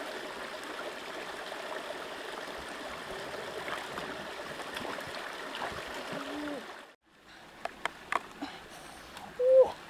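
Shallow rocky stream running and trickling as hands are washed in it. After a sudden cut come a few sharp clicks and cracks, with charred bamboo being handled, and a brief pitched call near the end.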